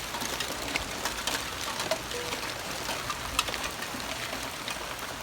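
Heavy rain falling: a steady hiss of rain with many sharp, irregular drop ticks on nearby surfaces.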